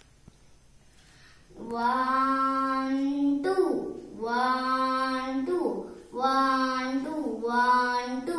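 A child singing four long held notes, starting about a second and a half in, each held for about a second and a half with short slides in pitch between them.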